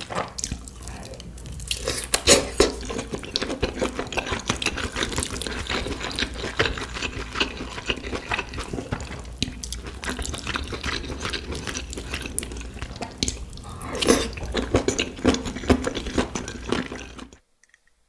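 Close-miked wet eating sounds: chewing and slurping, with many small moist clicks and squelches in uneven bursts. The sounds cut off suddenly near the end.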